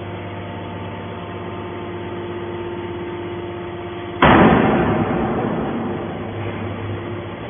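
Steady hum of a scrap metal baler's machinery running. About four seconds in, a sudden loud crash cuts in and fades away over about two seconds while the hum carries on.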